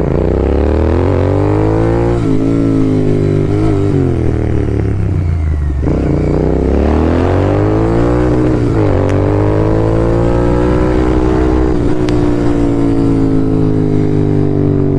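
Royal Enfield Continental GT 650's 648 cc parallel-twin engine under way: its pitch climbs and drops several times in the first nine seconds, then holds a steady, slowly falling note.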